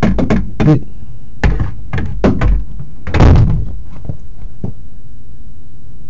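Knocks and thuds on the front door: a quick run of raps at first, then a handful of spaced, heavier bangs, the loudest about three seconds in.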